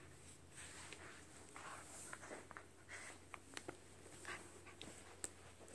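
Faint scuffling and a few soft, sharp clicks as a corgi puppy noses and mouths a plush toy on carpet.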